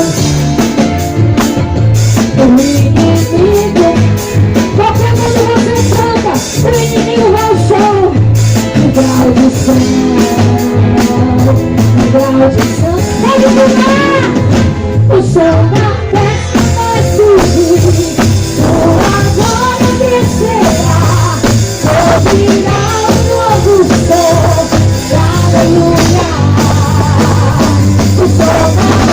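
Live gospel worship band playing a loud, steady upbeat song through a PA, with drum kit, bass and a sung melody.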